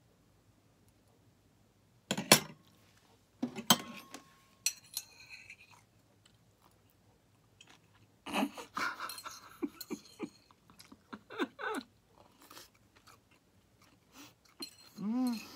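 Mouth chewing and crunching on a cooked insect snack, with sharp clicks of a metal fork against a plate. There are a few short vocal sounds near the end.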